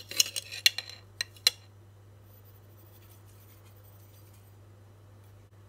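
A metal spoon clinking and scraping against a glass sugar canister as sugar is scooped out: a quick run of sharp clinks in the first second and a half, then only faint sounds.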